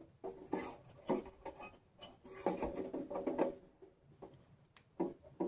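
Thin titanium stove panels and threaded rods being handled during assembly: irregular scraping and rubbing of metal on metal with a faint ring, then two short knocks near the end.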